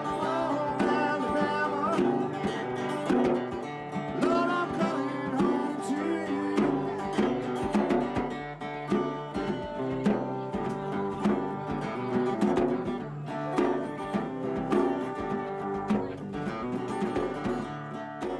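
Guitar-led music: plucked and strummed guitar notes with a steady rhythm.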